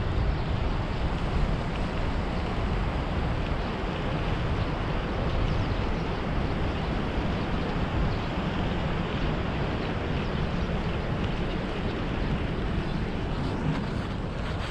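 Steady rushing rumble of wind buffeting a head-mounted action camera's microphone on a moving bicycle.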